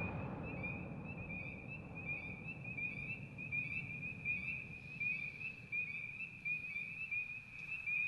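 The echoing tail of a firework shell burst dying away over the first second, leaving a steady night chorus of small animals calling in rapid chirps at one high pitch.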